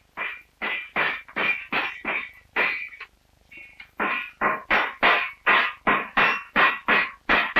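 Hammer blows on a strip of iron barrel-hoop band over an anvil, about two to three strikes a second with a short metallic ring to each. The strikes pause briefly about three seconds in, then resume. The band iron is being hammered round and riveted into a hoop.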